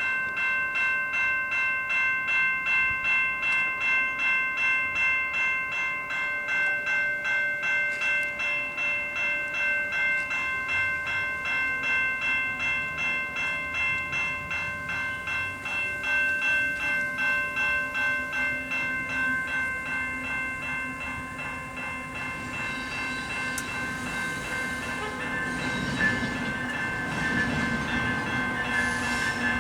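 A railway bell ringing rapidly and steadily, about twice a second. In the last several seconds a train approaches, its low diesel engine drone and rolling noise building, with a sharp knock near the end.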